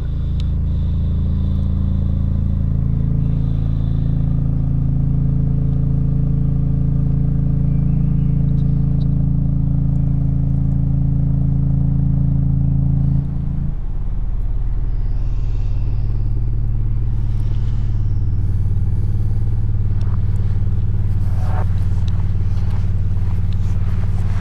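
Loud low drone of several steady held tones, which shifts abruptly to a different set of tones about halfway through.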